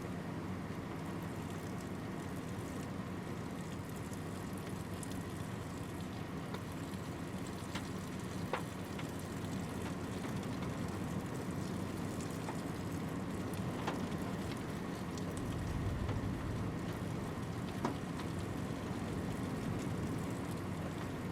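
Steady road and engine noise heard from inside a moving pickup truck, with a few isolated sharp ticks against the vehicle.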